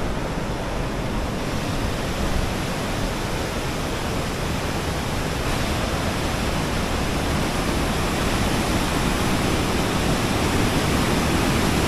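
Rushing water of a fast-flowing mountain river, a steady roar that grows slowly louder.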